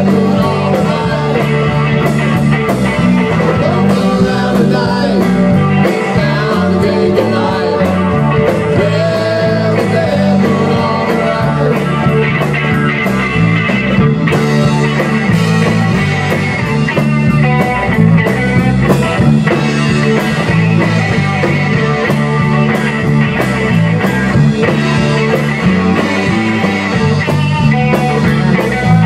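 Rock band playing live: electric guitar, bass guitar and a Tama drum kit keeping a steady beat.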